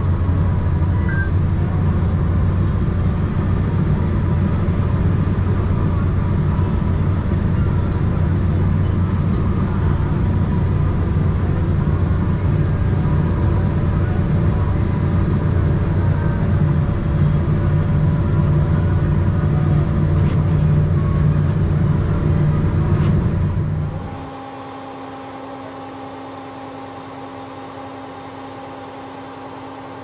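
Claas Lexion combine harvester running steadily at work, heard from inside the cab as a loud, even low drone. About 24 seconds in it cuts off to a quieter steady hum with higher tones.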